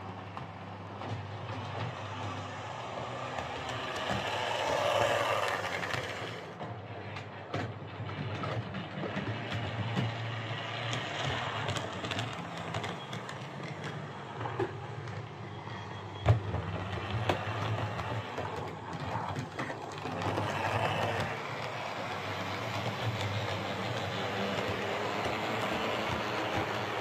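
Hornby OO gauge Class 142 Pacer model railbus running around a model railway layout: a steady whir and rattle of its single small motor and wheels on the track, louder about five seconds in and again about twenty seconds in, with scattered clicks and one sharp click about sixteen seconds in. It is running freshly cleaned and lubricated, its broken coupling contact wires repaired.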